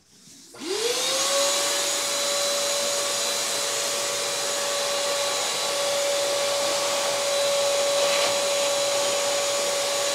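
Shop vacuum switched on about half a second in, its motor whining up to speed within a second, then running steadily with a loud rush of air, used to clear metal chips from the freshly tapped thread.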